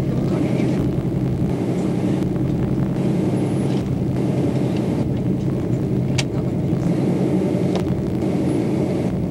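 Steady low engine rumble heard from inside a bus, with a single sharp click about six seconds in.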